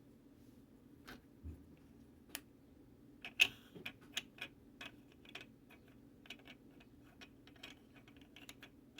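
Irregular light clicks and taps, about a dozen, the sharpest about three and a half seconds in, from the plastic parts and tools of an Oster clothes iron being handled during its repair. A faint steady hum lies underneath.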